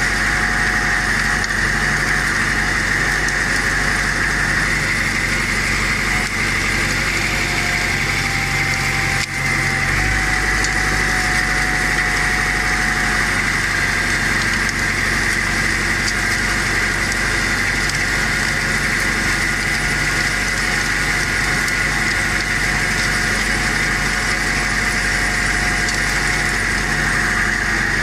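IMT 560 tractor's diesel engine running steadily under load while pulling a disc harrow. The sound dips briefly and the engine note shifts about nine seconds in.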